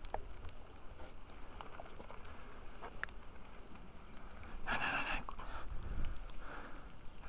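Low rumble of wind and handling noise on a body-worn camera microphone, with a few faint sharp clicks. About five seconds in comes a short, loud rush of noise.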